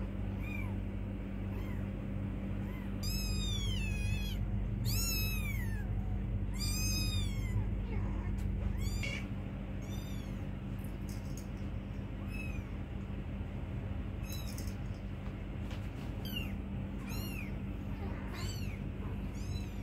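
Young kittens mewing: thin, high-pitched calls that rise and fall in pitch, about a dozen of them one to two seconds apart, loudest in the first half.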